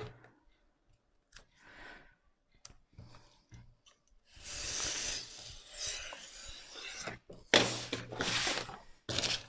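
Snap-off utility knife drawn along a metal ruler, slicing a narrow strip of self-adhesive vinyl film on a cutting mat: faint small scrapes at first, then a steadier scraping hiss from about halfway in. Near the end come louder rustles as the cut film strip and the ruler are handled.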